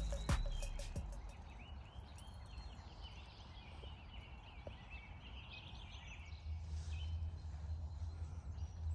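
A flock of birds calling in the distance, many short overlapping chirps that build and then thin out, over a steady low rumble of wind or background noise.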